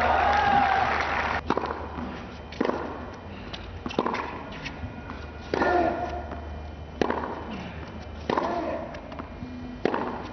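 A tennis rally: racquets striking the ball back and forth, about seven sharp hits roughly a second and a half apart. Several of the hits are followed by a short grunt.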